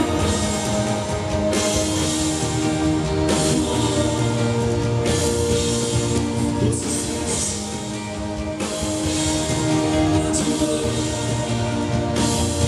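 Rock band playing live through a concert PA: electric guitars and drum kit with washes of cymbals, heard from among the audience.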